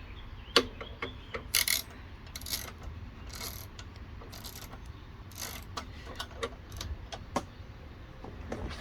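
Socket ratchet clicking in short, irregular runs, with sharp metal clicks in between, as exhaust hardware is fitted and tightened.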